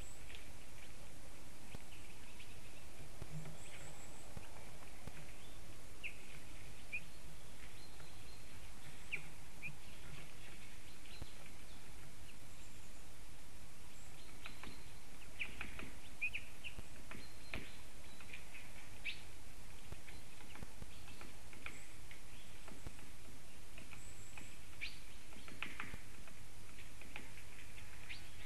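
Small wild birds giving short chirps scattered irregularly throughout, with a few faint very high thin notes now and then, over a steady hiss.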